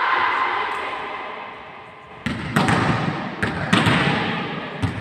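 Voices in a large hall fade over the first two seconds. Then, about two seconds in, a volleyball gives a run of four or five sharp thuds, each ringing on in the hall.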